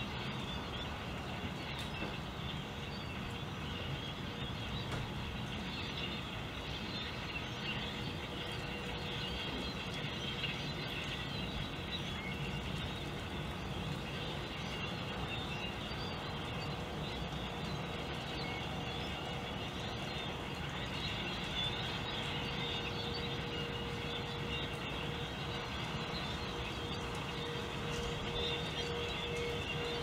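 A large flock of birds calling and chirping together in a dense, continuous chatter over a low steady rumble. A faint steady hum joins in about halfway through.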